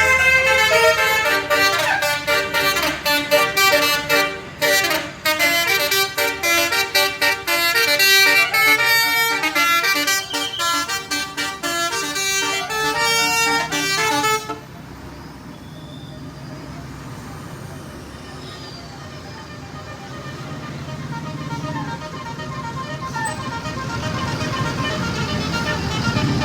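Basuri multi-trumpet 'telolet' horn playing a fast tune of quickly changing notes for about fourteen seconds, then cutting off suddenly. After that there is only a much quieter low rumble that grows louder near the end.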